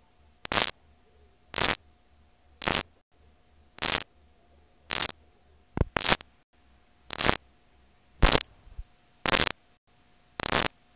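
Videotape playing back a blank or damaged stretch: short bursts of static hiss about once a second, evenly spaced, with quiet tape noise between them.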